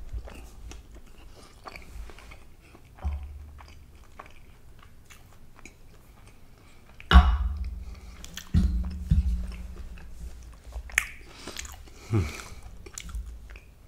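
Close-miked mouth sounds of chewing and lip smacking, mostly quiet. About seven seconds in comes a sharp, louder thump, followed by a few more knocks and smacks.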